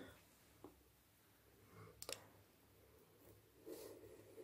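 Near silence: faint room tone with a couple of faint clicks, the sharpest about halfway.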